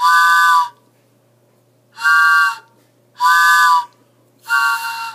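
Homemade mouth-blown train whistle sounding four short blasts, each a steady chord of three notes like a steam locomotive whistle; the fourth blast is weaker and wavers.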